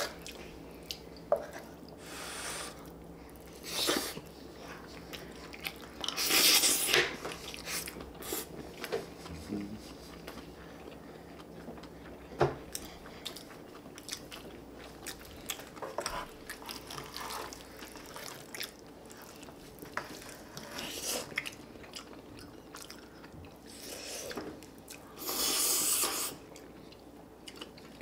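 Close-up eating sounds as two people chew fried rice and spicy stir-fried chicken (dakgalbi). Wooden spoons click and scrape against a metal pan and bowls, with sharp clicks now and then and a couple of longer noisy bursts, one about six seconds in and one near the end.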